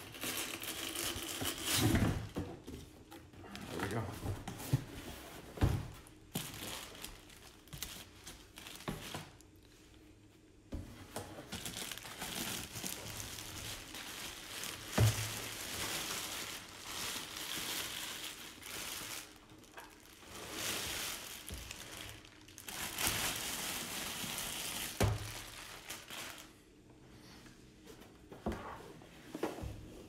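Clear plastic bag crinkling and rustling as it is pulled off a wet/dry vacuum, along with cardboard box flaps being handled. Several dull thumps are scattered through as the unit is moved about.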